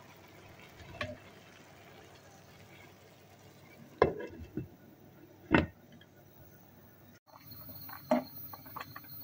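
Glass pot lid set onto a steel pan, clinking sharply against the rim twice, about four and five and a half seconds in. Near the end, faint bubbling ticks from rice cooking in water.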